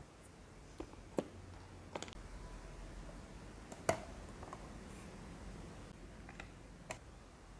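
A few scattered light clicks and taps of small plastic miniature kitchen pieces being handled: a tiny lid set on a toy rice cooker and a toy cabinet's drop-down door opened. The sharpest click comes about four seconds in.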